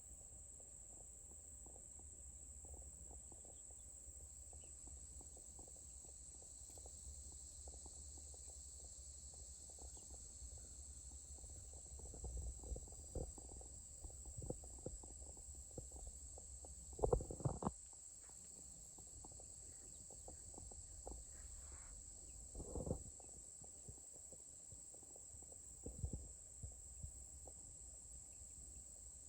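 Steady high-pitched chorus of crickets and other insects over a low rumble. Several soft knocks and rustles come in the second half, the loudest a little past the middle.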